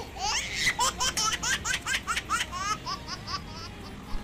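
High-pitched laughter in a quick run of rising squeals, several a second, lasting about two and a half seconds.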